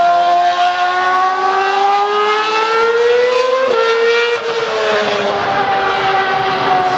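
Ferrari F2008 Formula One car's 2.4-litre V8 engine running at high revs, its pitch climbing for about three and a half seconds, then dropping suddenly and easing slowly downward.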